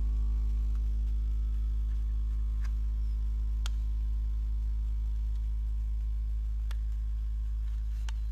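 Home-made hair-spray-can Stirling engine running at speed, about 3,150 rpm, giving a steady low hum. A few sharp ticks sound over it.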